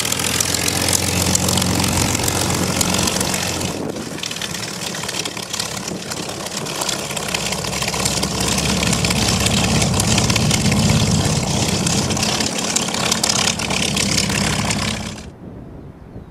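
Curtiss P-40E Warhawk's Allison V-1710 V-12 engine and propeller running steadily, with a brief break about four seconds in. The sound cuts off abruptly about a second before the end.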